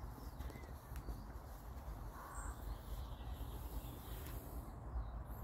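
Outdoor woodland ambience: a few faint bird chirps over a steady low rumble.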